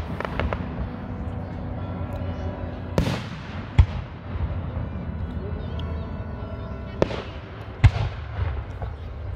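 Aerial fireworks shells launching and bursting: four sharp bangs in two pairs, about three seconds in and about seven seconds in. The first bang of each pair trails off in a rumble, and a few small cracks come near the start.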